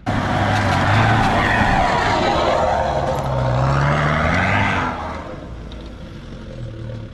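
Off-road pickup truck engine revving hard under load on a loose, muddy track, with heavy tyre and gravel noise; the revs climb about three seconds in, then drop away about five seconds in, leaving the engine running more quietly.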